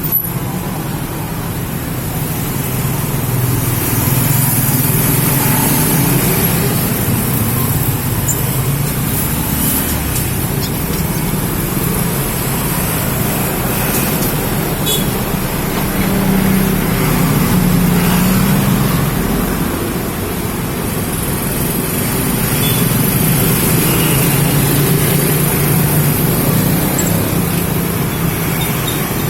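Steady engine-like hum and rumble whose pitch drifts slightly and swells twice, with a faint high hiss over it.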